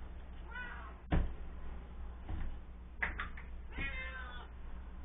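A domestic cat meowing twice: a short meow near the start and a longer one about four seconds in. A single sharp knock comes about a second in.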